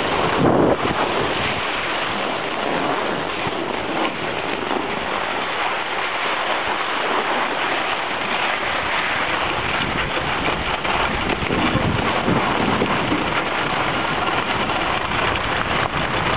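Skis sliding over packed snow, a steady hiss and scrape, with wind rushing over the microphone as the skier moves.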